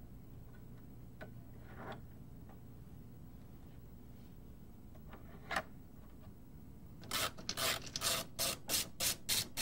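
Screwdriver working against plastic dashboard trim: a single sharp click a little past halfway, then a fast run of rasping scrapes, about four a second, near the end.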